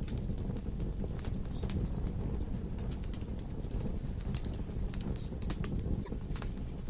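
Wood fire burning in a fireplace: a steady low rumble from the flames, with irregular sharp crackles and pops from the burning logs.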